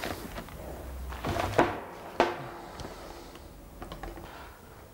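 Hands rummaging through a gasket set: rustling and handling noise with a few sharp knocks, two loud ones about a second and a half and two seconds in.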